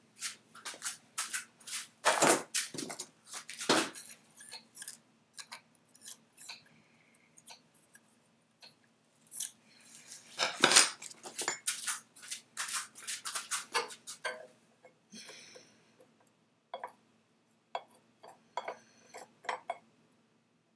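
Irregular metal clicks and clinks as a steel barrel nut is turned by hand onto the threads of an AR-15 upper receiver and a barrel nut wrench is handled against it, with a few louder clanks about two, four and eleven seconds in.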